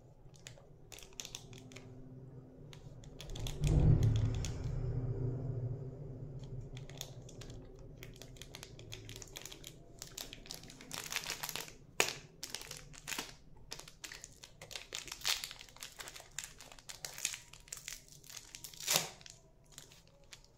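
Plastic candy wrapper crinkling and tearing as it is handled and opened, in many sharp crackles that come thickest in the second half. A dull low thump about four seconds in is the loudest single sound.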